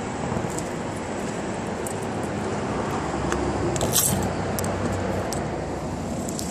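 Straight-piped exhaust of a 2001 Dodge Ram 1500's 3.9-litre V6 running steadily with a low rumble, heard from under the truck. A brief sharp rattle about four seconds in.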